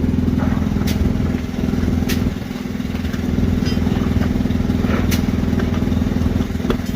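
Semi-truck engine idling steadily, with a few sharp clicks or knocks from work around it.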